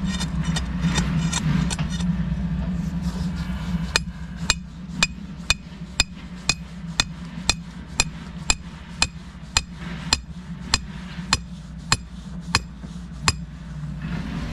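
A hammer driving a metal setting-out pin into the ground: about 18 sharp, ringing strikes, roughly two a second, starting about four seconds in. A low engine hum runs underneath, loudest before the strikes begin.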